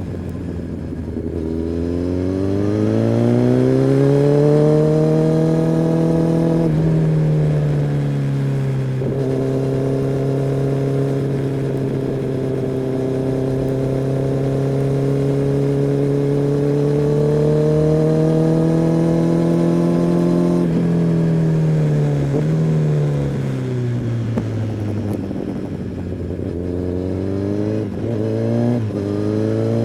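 Kawasaki ZX-10R's inline-four engine and exhaust on the move. The revs climb over the first few seconds, then hold steady at a cruise for most of the stretch, then sink with a few brief throttle blips near the end.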